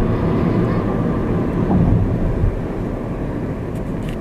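Steady road and engine noise of a car driving, a low rumble that swells briefly about halfway through and then eases a little.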